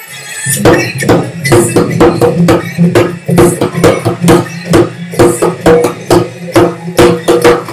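Hand drum struck with bare hands in a fast rhythmic pattern, about four to five strokes a second, beginning about half a second in, with deep, ringing tones mixed with sharper slaps.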